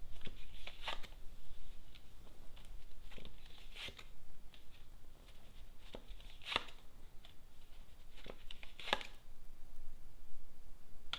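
A deck of Lenormand cards being shuffled and handled: irregular short snaps and rustles of the cards, a few of them sharper.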